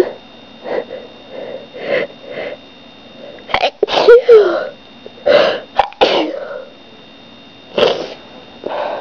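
A person sneezing several times in a row, with short breaths drawn in between. The loudest sneezes come in the middle.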